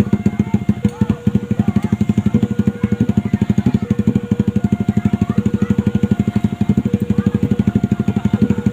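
Railway level-crossing warning alarm sounding: two tones take turns, roughly one change every half second or so, over a fast, even pulsing.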